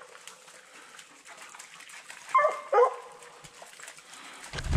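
Redbone coonhound barking twice in quick succession, about two and a half seconds in, with a low rumble near the end.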